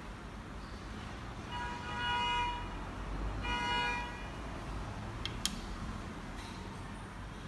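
Two horn-like tones, the first about a second long and the second a little shorter, over a steady low background rumble, with one sharp click a couple of seconds later.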